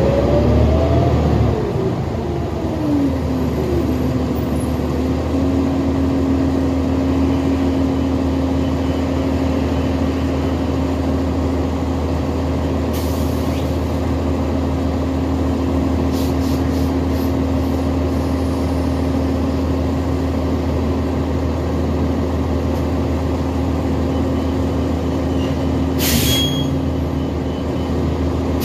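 New Flyer XD60 Xcelsior articulated diesel bus running: a whine glides down and back up over the first few seconds, then settles into a steady hum over the engine's constant drone. Short hisses of air come midway and twice near the end.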